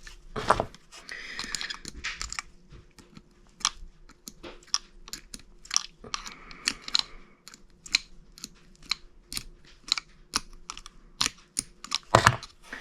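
Irregular clicks and taps of small parts being handled as a refrigerator's fan motor assembly is taken apart, with two short stretches of scraping, about a second in and again around six seconds. A faint steady hum runs underneath.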